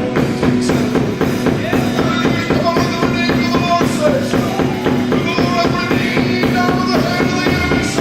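Live gospel worship band playing a steady, driving groove on drum kit, bass guitar and keyboard.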